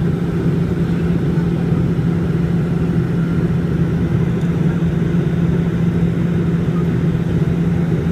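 Cabin noise of a Bombardier Dash 8 Q400 turboprop airliner in flight: a steady, loud drone from its Pratt & Whitney PW150A engines and six-bladed propellers, with a strong low hum held at one pitch.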